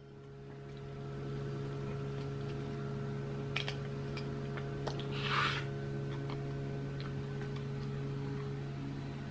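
Fork working king crab meat out of the shell: a few faint clicks and a brief scrape about five seconds in, over a steady low hum.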